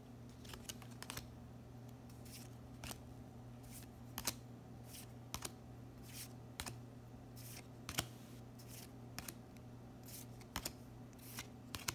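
Dragon Ball Super Card Game trading cards being flipped through by hand, one card slid off the stack at a time: a run of short papery flicks and snaps at uneven spacing, a little under two a second, over a steady low hum.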